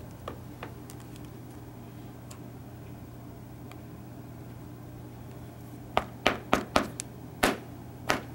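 Steady low hum of room tone, then a quick run of about six sharp taps or clicks near the end as hands handle a foam-backed sound-deadener sheet.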